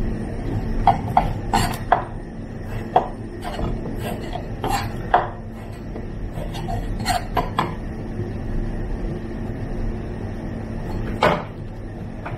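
Knife clicking against a wooden cutting board as squid is sliced, in irregular light knocks with a louder one near the end. A steady low hum runs underneath.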